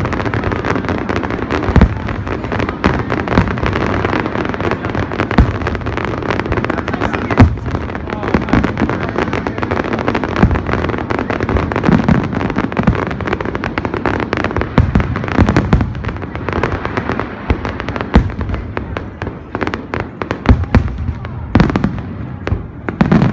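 Aerial fireworks display: frequent sharp bangs of shells bursting over a steady crackle.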